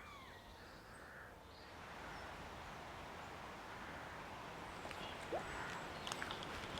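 Faint riverbank ambience: a steady hiss of flowing water that grows slightly after about two seconds, with a few short bird-like chirps near the start and light clicks in the second half.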